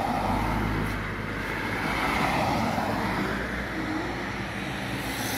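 A minivan driving past on the road: a rush of tyre and engine noise.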